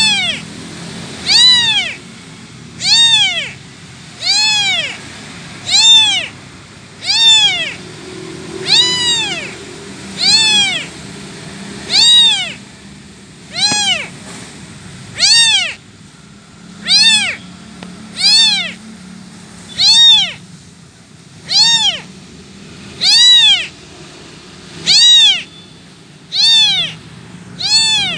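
Kitten meowing over and over, about one call every second and a half, each meow rising and then falling in pitch: a kitten calling for its mother.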